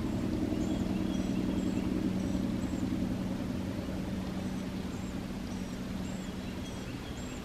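A steady low engine drone, with a small bird repeating short, high, thin chirps about twice a second over it.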